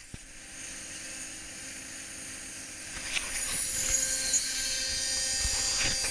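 CNC mill spindle running with its end mill cutting a metal plate: a steady high-pitched whine and hiss that grows louder about three seconds in.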